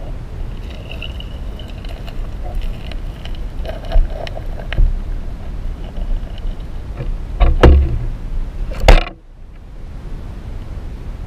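Underwater sound picked up by a submerged camera: a steady low rumble of moving water with scattered clicks and knocks, two loud thumps about seven and a half and nine seconds in, after which the sound drops off suddenly to a duller rumble.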